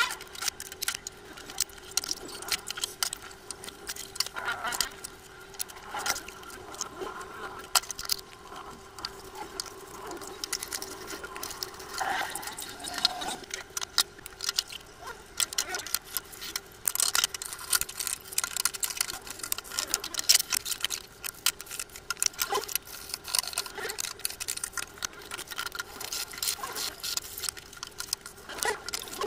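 Dishes being washed by hand: ceramic bowls and a metal pot clinking and knocking against each other and the sink, in many short irregular clatters over a steady hum.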